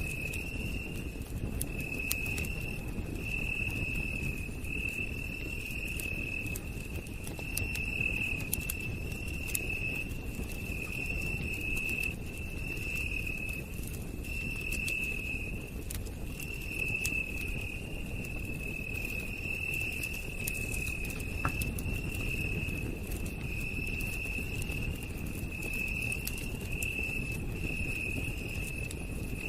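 Campfire crackling with scattered sharp pops over a low rumble of burning. Night insects keep up a steady high trill in short repeated phrases.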